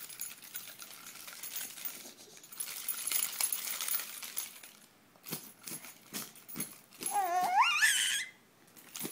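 A bunch of keys jangled with a bright metallic jingle for the first few seconds, then a few scattered clicks. Near the end a baby lets out one rising, wavering squeal.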